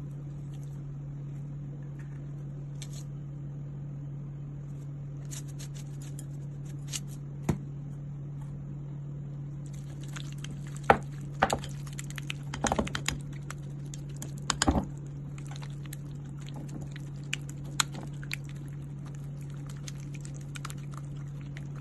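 A plastic spoon stirring and mashing mayonnaise in a ceramic bowl, with scattered clicks and taps as it knocks and scrapes against the bowl, loudest about halfway through. A steady low hum runs underneath.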